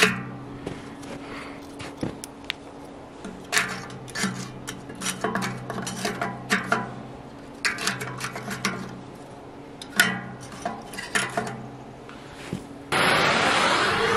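Split wood kindling knocking and clinking against the steel feed tube of a rocket stove as the sticks are pushed in, in several scattered bursts. Near the end a handheld gas torch is lit and hisses steadily, louder than everything before it.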